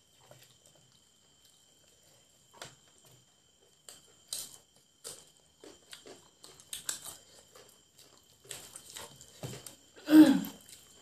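Close-up eating sounds of fried chicken legs being eaten by hand: soft chewing, mouth clicks and meat being torn apart with the fingers, in scattered short sounds. A brief louder voiced sound, like a murmur with food in the mouth, comes near the end.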